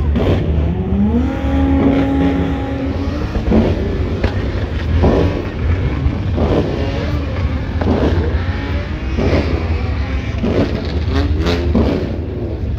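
Car engines running under a steady low rumble: one revs up about half a second in and holds its revs for a couple of seconds. Voices are mixed in.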